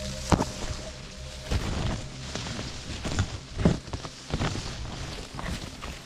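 Cassava leaves and stems rustling and swishing as a person pushes through the plants on foot, with irregular louder brushes and footfalls; the sharpest comes about a third of a second in.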